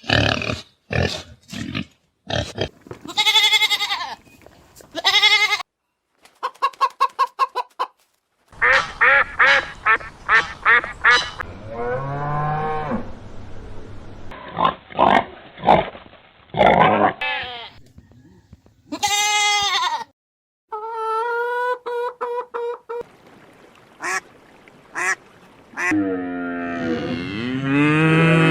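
Geese honking and ducks quacking: a string of short, loud calls in several cut-together clips.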